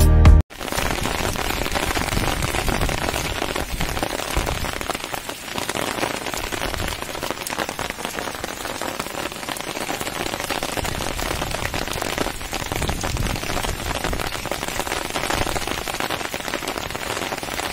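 Steady rain falling, an even hiss of many small drops landing.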